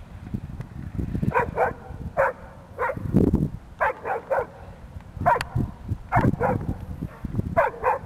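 A dog barking excitedly in short, quick barks, often two or three in a row, starting about a second in, about a dozen in all. Low rumbling and knocks run underneath.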